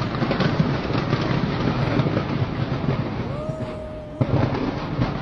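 Fireworks display going off in a dense, continuous crackle of rapid bangs and pops. It eases a little past the middle, then a fresh loud volley breaks in about four seconds in.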